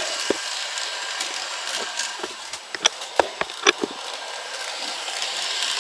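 Battery-powered NewRay RailRoadN N gauge TGV model train running on plastic track: a steady high hiss of its small motor and wheels, with a few sharp clicks about halfway through.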